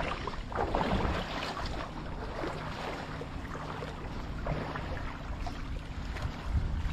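Wind rumbling on the microphone over small waves lapping at the shore, with a faint steady low hum underneath.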